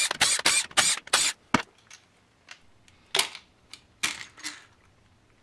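A cordless driver run in short bursts of a second or less, spinning out the valve body bolts on a GM 4L80E transmission, several in a row in the first second and a half. After that come scattered metal clicks and a couple more short bursts about three and four seconds in, as the valve body hardware is handled.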